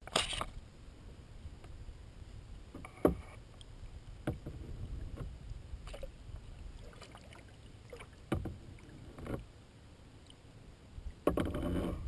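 Kayak on calm water heard through a camera mounted on its deck: a low rumble with scattered sharp knocks and small splashes against the hull, and a longer scuffling burst near the end.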